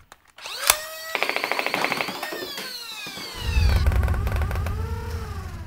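Short electronic intro sting: a sharp hit, then a rapid rattling run of pulses like fast gunfire, falling synth sweeps, and a deep bass rumble from about halfway that fades near the end.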